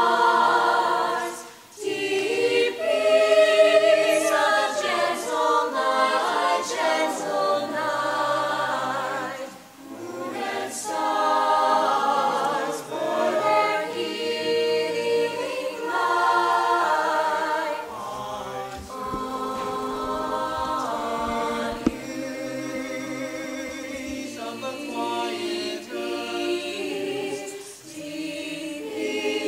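Mixed-voice chamber choir singing, in long sung phrases with short breaks about two seconds in and near ten seconds.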